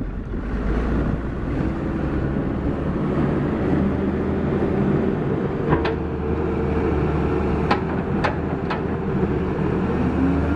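Caterpillar 321C excavator's diesel engine running steadily, with four short sharp clanks in the second half.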